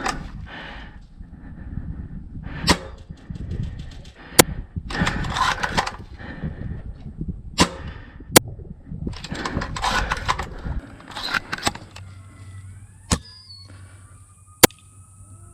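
Airsoft guns firing: sharp cracks, about seven of them at irregular gaps of a second or more, between stretches of rustling.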